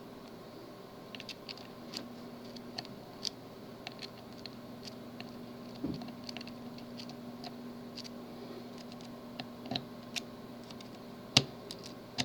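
Small, irregular clicks and ticks of a pick working the pins of a tubular lock, with a louder click about six seconds in and another near the end, over a faint steady hum.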